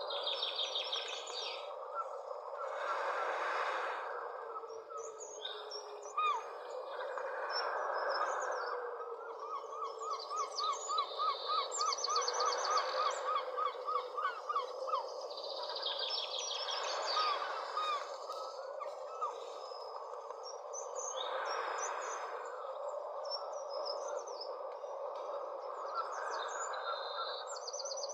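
Several birds calling outdoors: chirps and high trills, with a run of quick repeated notes, about four a second, in the middle. Underneath is a steady background hiss.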